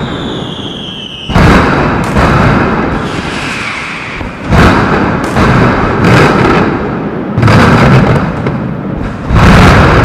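Mascletà firecracker barrage: a dense, rapid rattle of loud ground-level bangs that swells in waves about every three seconds. A falling whistle sounds in the first second.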